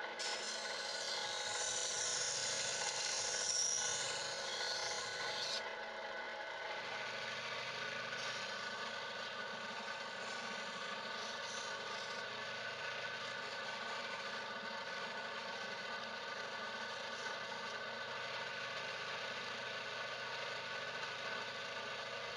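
Angle grinder running at steady speed. For the first five and a half seconds its disc grinds against the steel of a kitchen knife blade with a loud hiss, then the grinder runs on without touching the metal.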